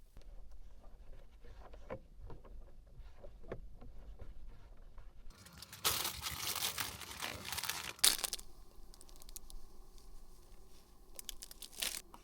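Plastic packaging crinkling and tearing for about three seconds in the middle, ending with a sharp click, amid small handling clicks and knocks.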